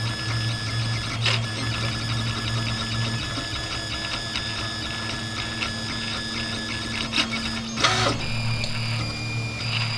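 RepRap 3D printer running a print: the stepper motors whine in steady tones that shift and drop out as the print head changes moves, over a low hum. There are a few sharp clicks, about a second in and twice near the end.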